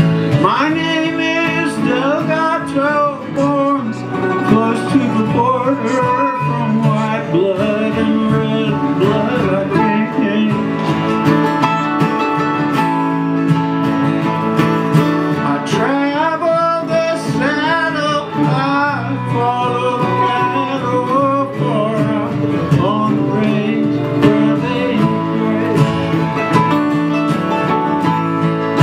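Two acoustic guitars strumming with a mandolin picking the lead melody: a country-folk song's instrumental opening, played live.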